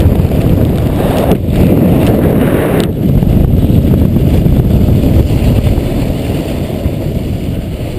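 Wind buffeting a GoPro camera's microphone while riding a snowboard downhill, mixed with the board sliding over the snow: a loud, steady, low rushing that eases off near the end.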